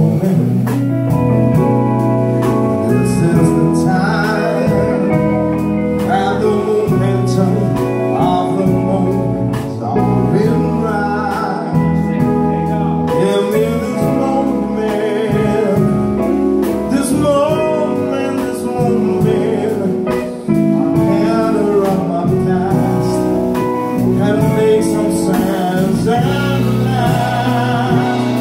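Live band playing: a man singing into a microphone over a drum kit, electric bass and electric guitars.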